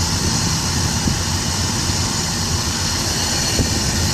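Steady rumble and hiss on the open aft deck of a VLCC tanker: low machinery noise from the ship with wind buffeting the microphone, even in level with no single event standing out.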